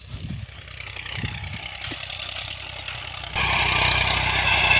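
Tractor diesel engine running as it pulls a seed drill, faint at first with a few low thumps, then suddenly louder about three seconds in, with a steady high hiss over the engine.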